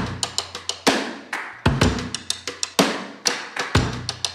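Background music: a drum-kit beat with one strong hit about once a second and quick high ticks between, over a low sustained bass.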